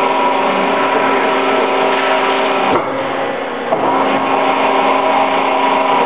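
Powered bending rolls running steadily as they curve an aluminum composite panel to a 12-inch radius: a motor hum with a noisy hiss over it. The sound dips for a moment about three seconds in and comes back with a short click.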